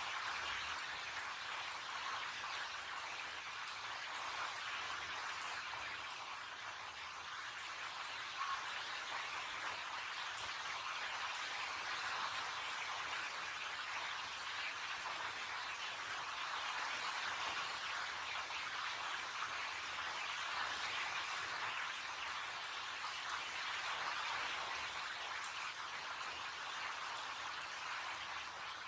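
Heavy rain falling outside, a steady even hiss that holds unchanged throughout.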